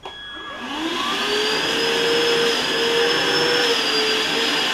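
ETENWOLF Vortex S6 portable inflator's electric motor and fan starting up in deflation (suction) mode. The whine rises in pitch over about the first second, then runs steadily over a rush of air.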